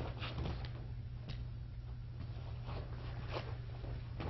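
Quiet hall ambience: a steady low hum with faint background noise and a couple of faint short taps or knocks.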